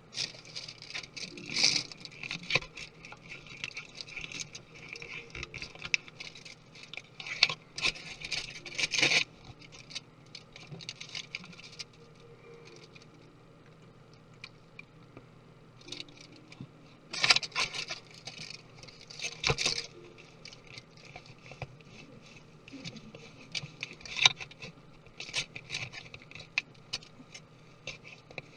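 Irregular clicks, taps and short scrapes of small tools and parts being handled while taking apart a 2017 13-inch MacBook Pro, in several busy spells with a quieter stretch in the middle.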